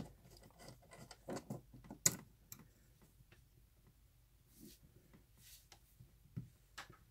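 Faint handling clicks and rubbing as a copper ring-terminal lug is worked off a busbar stud and its cable pulled free, with one sharper metallic click about two seconds in.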